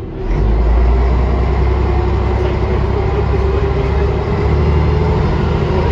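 Volvo B10M-50 bus's diesel engine heard from inside the saloon: a deep drone that gets suddenly louder about a third of a second in, then runs on steady and loud.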